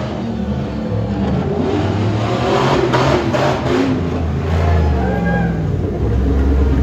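Engine of a stripped-down Jeep Grand Cherokee tuff truck revving hard, rising and falling as the truck accelerates around the dirt course.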